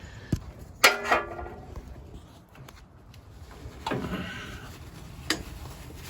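Scattered clicks and knocks of metal parts and tools being handled, with one sharp metallic clink that rings briefly about a second in.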